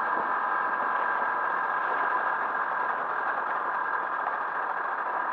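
Motorcycle engine running steadily under way, the sound even and unbroken.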